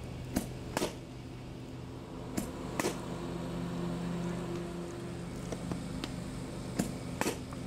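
Softball bat hitting pitched softballs: three swings, each heard as two sharp cracks about half a second apart, over a steady low hum.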